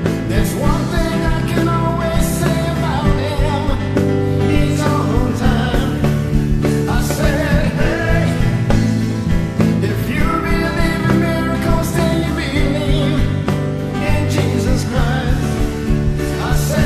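Gospel song with a full band: steady beat and bass under a moving melodic lead, with no sung words.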